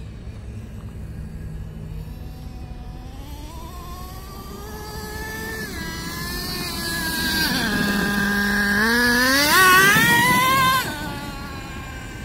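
Traxxas T-Maxx 3.3 nitro RC truck's small two-stroke glow engine revving as it drives: the pitch climbs, drops back, then climbs steeply to its loudest before cutting off suddenly near the end. The engine is running on a freshly fitted carburetor.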